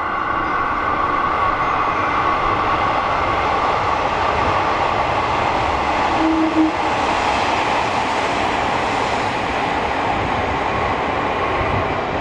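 KiHa 32 and KiHa 54 diesel railcars running through a station at speed without stopping. A steady rush of engine and wheel noise builds to its loudest about six to seven seconds in, with a short tone at the peak, then fades as the train goes by.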